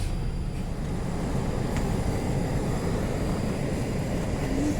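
Steady low rumble of a vehicle running, even throughout with no changes.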